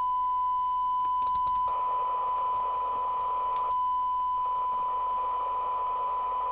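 Steady 1 kHz test tone from the FM CB receiver's audio output as it demodulates the signal generator's modulated test signal during alignment, with a few clicks just after a second in. A hiss joins the tone after about a second and a half and drops out briefly near four seconds.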